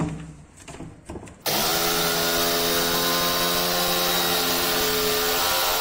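A few light knocks, then a corded jigsaw starts about a second and a half in, with a short rising whine as it spins up. It then runs steadily and loudly as it cuts into a wood-grain cabinet panel.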